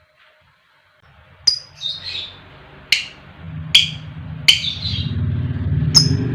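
Lovebird giving sharp, shrill single chirps about once a second, starting after a second of near silence, over a low steady hum.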